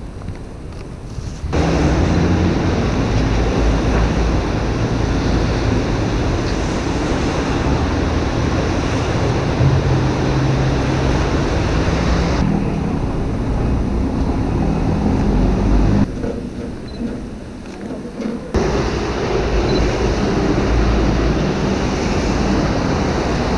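Steady rushing noise of wind buffeting the microphone over traffic on a rain-wet street, with a low rumble; it starts abruptly about a second and a half in and drops away sharply for about two seconds later on.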